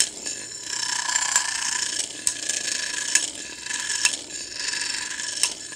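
Two Beyblade spinning tops whirring as their tips grind on the inside of a nonstick frying pan, with about five sharp clicks as the tops collide.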